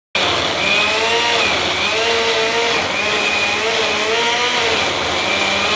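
Electric motor of a household appliance, repaired with welded and glued plastic parts, switched on and running loud and steady, its hum wavering up and down in pitch about once a second.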